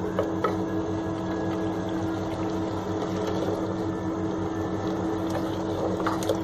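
Chicken frying in oil in a clay handi and being stirred with a spatula. There are a few light knocks and scrapes against the pot shortly after the start and near the end, all over a steady low hum.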